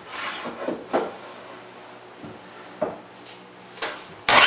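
Light wooden knocks and thumps as a pine 2x board is slid and set against a miter saw's fence, then near the end the miter saw's motor switches on with a sudden loud whine.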